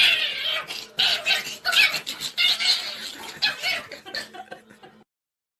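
A person laughing in repeated giggling bursts, cutting off suddenly about five seconds in.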